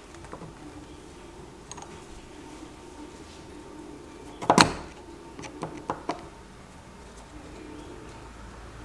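Metal clicks and knocks of a screwdriver working the screws of an old Union cylinder nightlatch's cast lock case on a door. There is one loud clatter about four and a half seconds in, then a few sharp clicks just after.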